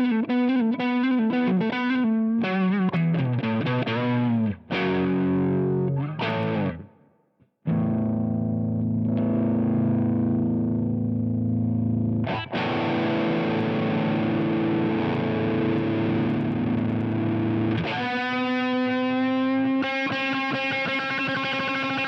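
Electric guitar through a Joyo Deluxe Crunch distortion pedal: a quick picked riff of single notes, a few short chord stabs and a brief stop, then long held chords left ringing, changing twice.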